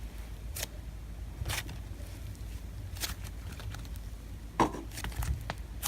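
Hands playing with a butter slime topped with clay sprinkles and clay toffee: a few irregular, short squishing and crackling sounds, the loudest about four and a half seconds in, over a low steady hum.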